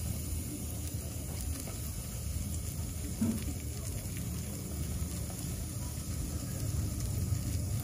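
Curry powder poured into hot oil in a pot, sizzling faintly as it toasts: the "burning the curry" step of Jamaican curry. A steady low rumble runs underneath and is the loudest sound.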